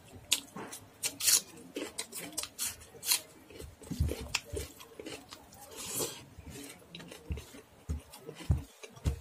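Fingers scraping and mixing rice and dal across a stainless steel plate: a run of irregular sharp clicks and rasps, with soft low thuds of chewing now and then.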